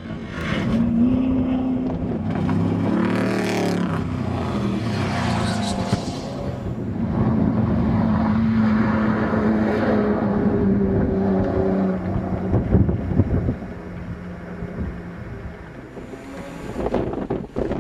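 Off-road desert race truck engines running hard as trucks pass, the engine pitch rising and falling, loudest through the first twelve seconds or so and then easing off.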